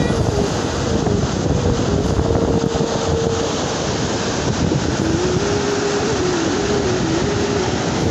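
Fast-flowing floodwater rushing over open ground, a loud steady roar with wind buffeting the microphone. A thin tone wavers up and down in steps on top of it.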